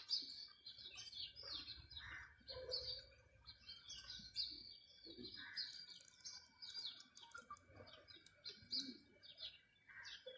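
Faint chirping of small birds: many short, high chirps coming one after another.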